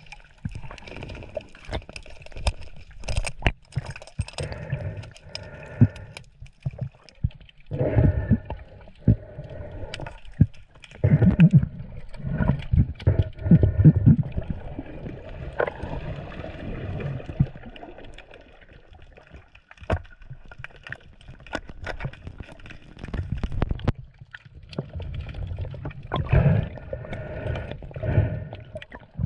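Water sloshing and gurgling, in uneven swells, with many scattered sharp clicks and knocks.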